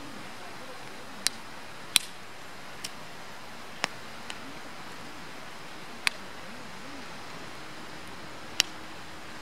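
Firewood burning with a steady soft hiss and sharp crackling pops at irregular intervals, about seven in a few seconds, from the burning wood.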